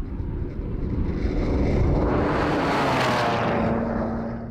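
BMW E92 335i with its N54 twin-turbo straight-six driving fast toward and past the camera on dry dirt. The rush of engine and tyre noise builds, peaks as the car goes by about three seconds in, and the engine note then drops in pitch as it moves away.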